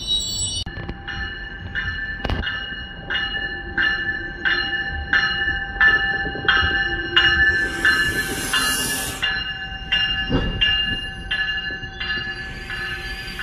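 GO Transit bilevel commuter train's bell ringing steadily, struck about once every 0.7 seconds from about a second in, over the low rumble of the train. A short hiss of air comes around eight seconds in.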